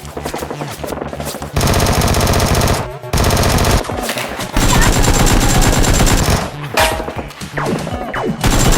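Half-Life 2 automatic gunfire sound effects: a rapid burst starting about a second and a half in, another after a short break, then a stretch of dense, heavy firing, with scattered single shots near the end.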